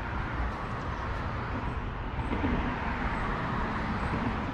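Road traffic crossing the bridge overhead: a steady hiss of tyres and engines that swells a little near the middle and eases off.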